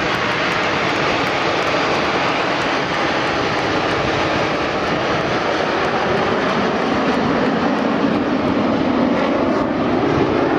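A formation of Aermacchi MB-339 single-turbojet trainers flying past, a steady jet rush that grows a little louder near the end.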